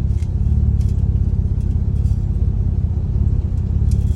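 Porsche Cayman S (987.1) 3.4-litre flat-six idling steadily with a new OEM drive belt fitted, a low even rumble, with a few faint clicks over it.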